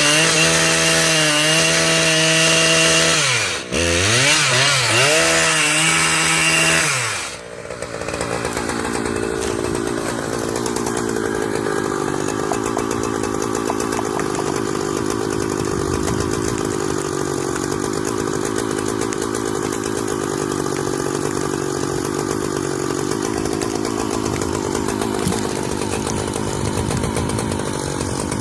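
Chainsaw running at high revs, dropping off briefly about four seconds in and winding back up. After about seven seconds it gives way abruptly to a quieter, steadier, rougher chainsaw sound that runs on to the end.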